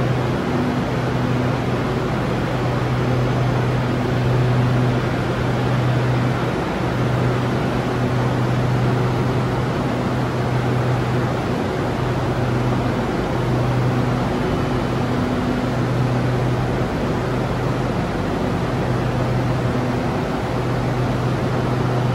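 Steady hum and rush of air from a standing SRT Red Line electric train's air conditioning and auxiliary equipment. A strong low tone under the noise drops out for a moment every few seconds.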